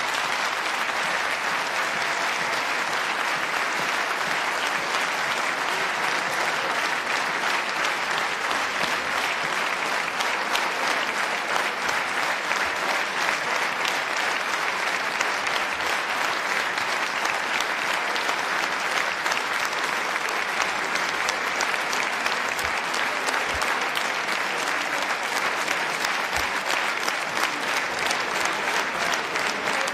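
Large audience clapping in a long, steady round of applause, dense and even throughout without pause.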